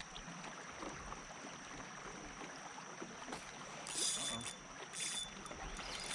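Water lapping around a paddle board, with short high-pitched buzzes from a fishing reel's drag about four and five seconds in as a hooked fish pulls line.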